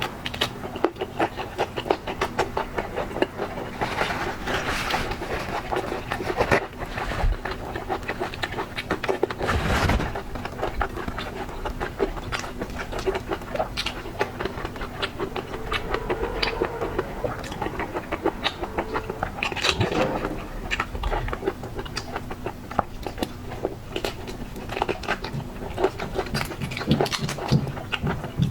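Close-up eating sounds of a person chewing shrimp: a dense run of small wet crunches, clicks and mouth smacks, with a few louder bites and slurps along the way.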